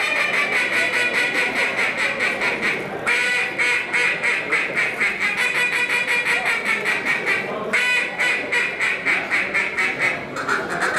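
Duck call blown in a competition calling routine, imitating a mallard hen: a fast string of short quacks, several a second, in long runs with brief breaks about three and eight seconds in.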